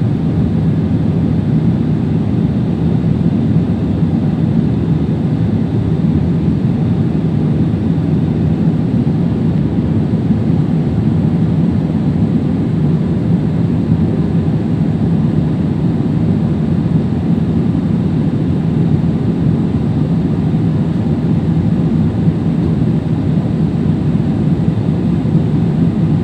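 Airliner cabin noise during the climb: jet engines and rushing air heard from inside the cabin as a steady, deep rumble with a faint even hum, unchanging throughout.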